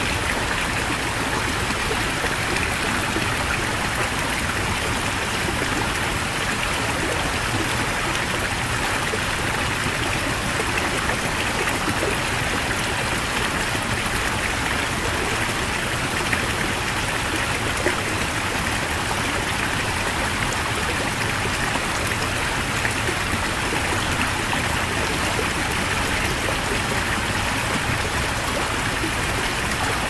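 Heavy mountain stream: a steady, unbroken rush of fast-flowing water.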